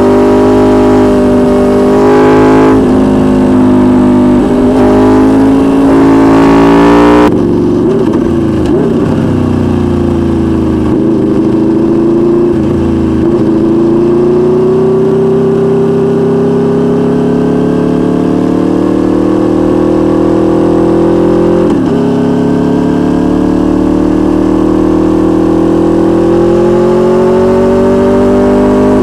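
Aprilia Tuono V4 1100's V4 engine through a Racefit aftermarket exhaust, recorded on the bike under way. The revs climb hard through an upshift about three seconds in and the throttle snaps shut about seven seconds in. The engine then settles into a steady part-throttle run with its pitch slowly rising, and a brief dip a little after twenty seconds in.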